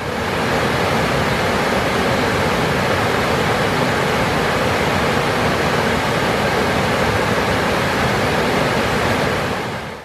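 Rushing whitewater of a rocky river cascade: a steady, loud, even rush of falling water.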